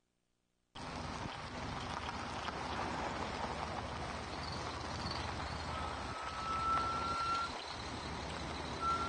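Near silence, then a sudden cut to steady outdoor rushing noise: wind on the camcorder microphone over the running semi truck that is hauling the house on a flatbed trailer. A thin high whine rises slightly and holds for a second or two, then comes back briefly near the end.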